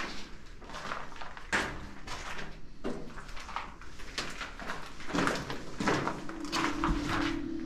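Footsteps crunching and scuffing over rubble and broken concrete on a tunnel floor, in irregular steps. A steady low hum comes in about six seconds in.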